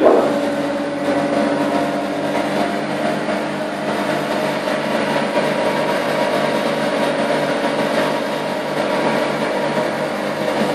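Cashew nut powder grinding machine running, its electric motor and grinding rotor giving a steady hum with a few held tones.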